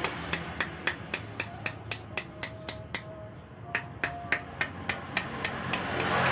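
Small hammer tapping lightly and repeatedly on the steel rim of a motorcycle rear monoshock body, about four sharp metallic taps a second with a brief pause midway. The blows re-form the crimped lip of the shock body so that it holds the new seal's retaining ring.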